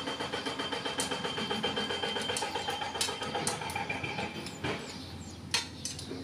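A small motor running with a fast, steady pulsing that stops about four and a half seconds in, followed by a few sharp clicks.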